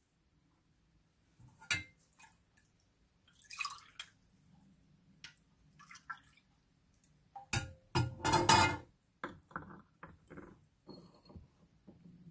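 Cinnamon tea being poured into a stoneware cup, the pour about eight seconds in the loudest part, followed by a few drips. Light clinks of ceramic come as the cup is lifted off and set back on its saucer.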